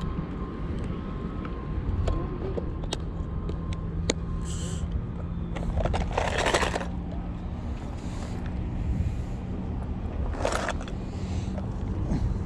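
Steady low motor drone with a few short scraping noises over it.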